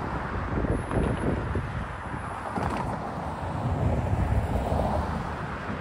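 Road cars driving past, with tyre and engine noise, and wind buffeting the microphone.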